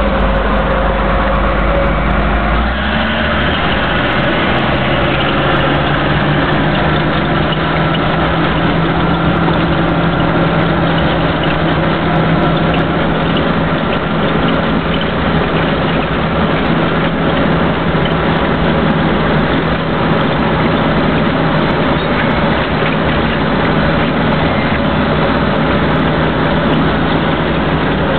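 Caterpillar D6 bulldozer's diesel engine running steadily under way. Its note shifts about three seconds in and then holds a steady hum.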